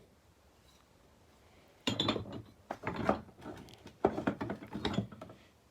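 Metal auto body hammers and dollies clattering as they are picked up and set down: a run of sharp clinks and knocks starting about two seconds in.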